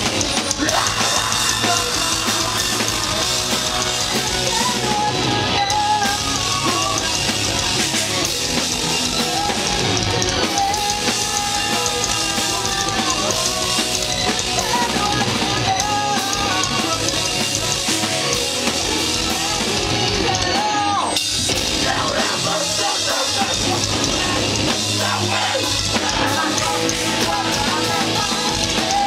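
Live hardcore/electro rock band playing loudly: distorted electric guitars, bass and a pounding drum kit. The low end thins out for a few seconds about two-thirds of the way through.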